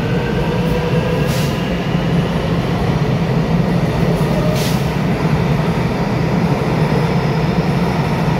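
EMU900 electric multiple unit running along the platform of an underground station: a steady rumble of wheels on rail with a faint motor whine slowly rising in pitch as it picks up speed. Two brief hisses come about a second and a half and four and a half seconds in.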